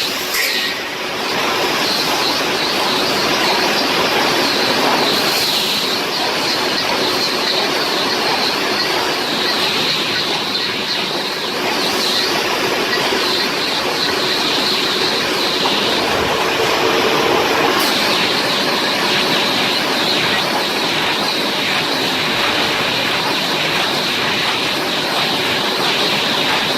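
Automatic reinforcing-cage welding machine running: a continuous loud mechanical clatter and hiss, with a few sharper cracks at intervals.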